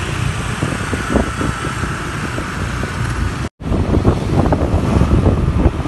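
Wind buffeting the microphone over the noise of motorcycle and car traffic, heard while riding along a street. The sound cuts out completely for a moment a little past halfway, then the same wind and traffic noise returns.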